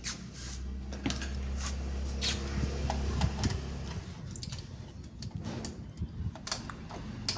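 Scattered light clicks and knocks of the small hardware of a screen door closer being handled and fitted, over a low rumble during the first three seconds or so.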